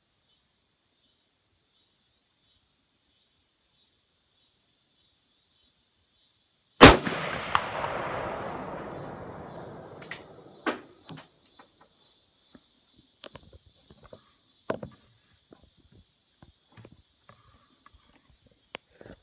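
A single .270 rifle shot from a New England Firearms single-shot rifle about seven seconds in, with a long rolling echo that fades over about three seconds. A short sharp tick comes under a second after the shot, the bullet striking the steel plate target at 200 yards. A few scattered clicks and knocks follow, over a steady high insect drone with regular chirps.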